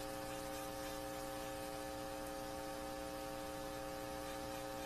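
Stereo speakers turned up full, playing the output of a homemade pickup made from an iron-core 120-to-12 volt step-down transformer fixed to a steel beam with neodymium magnets. It gives a steady electrical hum of several held tones over a constant hiss.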